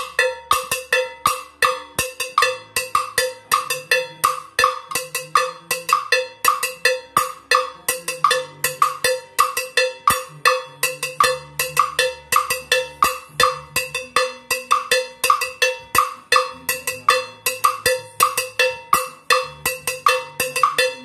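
Bongo bell (salsa cowbell) struck with a stick in a steady 3-2 bongo-bell pattern, about two to three ringing strokes a second, against a clave rhythm knocked on a plastic block, with a low bass line shifting underneath.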